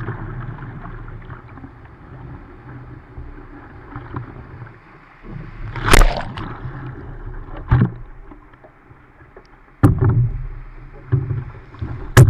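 Surf washing against a surfski's bow, a steady rumbling wash, with several sudden loud splashes of broken water over the bow and onto the microphone in the second half.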